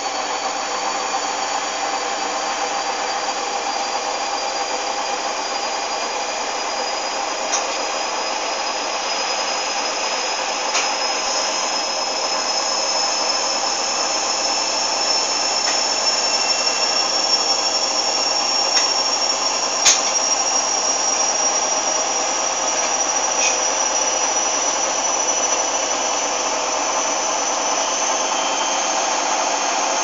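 Hoover front-loading washing machine spinning: a steady motor and drum noise with a high whine that slowly rises in pitch as the drum speeds up. A few sharp clicks stand out, the loudest a little past halfway.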